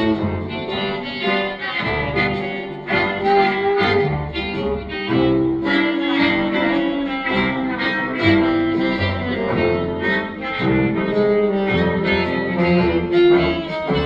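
Background music: an old-time, jazz-era record with bowed strings playing held melody notes over a moving bass line.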